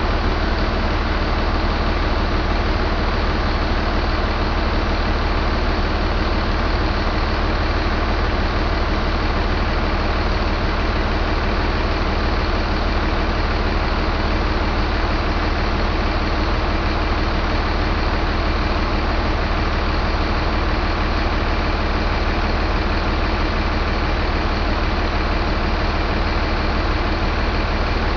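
Mercedes-Benz MBE906 inline-six turbo diesel engine idling steadily, with no change in speed.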